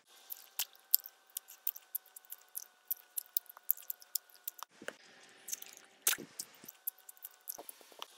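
Chewing gum with the mouth open: a rapid, irregular run of wet smacking and clicking, several smacks a second, the rude, noisy way of chewing gum.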